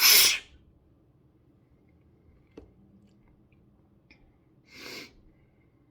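A person sneezing once, loud and sudden right at the start, then a short breath about five seconds in.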